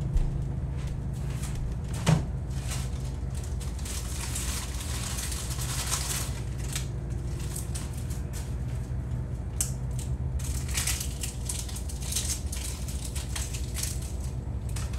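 Plastic bag crinkling and rustling in several spells, with a knock about two seconds in, over a steady low hum.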